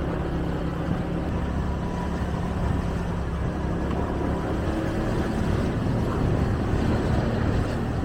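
Motorbike engine running steadily while riding, with road and wind noise.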